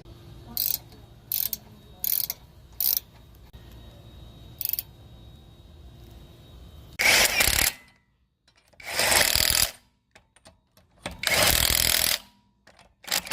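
A few sharp metallic clicks of hand tools, then a power impact wrench run in four bursts of about a second each, tightening the fasteners as the brake and wheel are reassembled.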